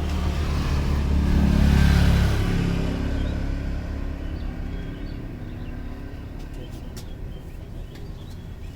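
A motor vehicle passing by, its engine rumble building to a peak about two seconds in and then slowly fading away.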